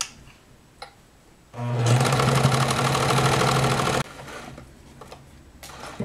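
Electric sewing machine stitching ribbon onto nylon webbing in one steady run with an even, rapid needle rhythm. The run starts about a second and a half in and stops abruptly about two and a half seconds later.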